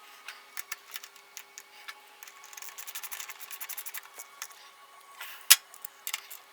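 Ratchet wrench clicking as a motorcycle's rear brake caliper bolt is done up, with a fast even run of clicks about two seconds in. Scattered light metal clicks around it and one sharp knock near the end.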